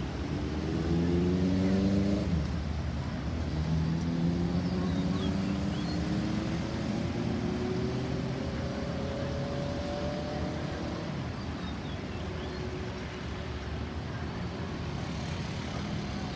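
A motor vehicle's engine accelerating: its note rises for about two seconds, drops as if at a gear change, then climbs slowly again for several seconds before fading into steady traffic rumble.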